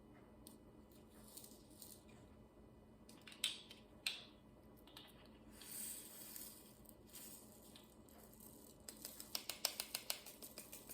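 Faint clicks and light taps of diamond painting drills being handled and placed, with a quick run of light ticks, several a second, near the end.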